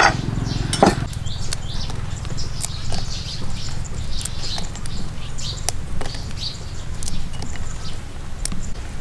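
Birds chirping over a low steady rumble, with two sharp knocks in the first second and scattered small ticks as green chilies are plucked from their stems and dropped into a stone mortar.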